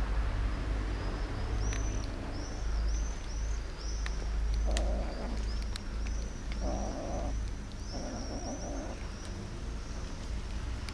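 Kittens eating wet cat food from a plastic tub, with a few short bursts of chewing and smacking about halfway through. A run of high, short chirps repeats over it, above a steady low rumble.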